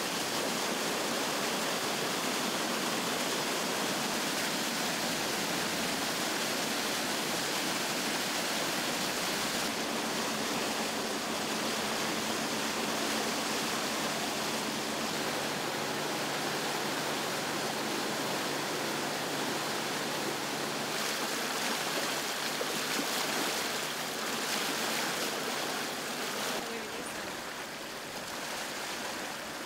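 Water gushing steadily out of a large discharge pipe from a fish tanker truck, flushing young Chinook salmon into a net pen; a little quieter near the end.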